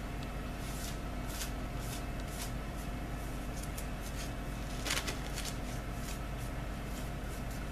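Faint rustling and light handling of decoupage paper, with a few soft clicks. The most distinct comes about five seconds in, over a steady low hum.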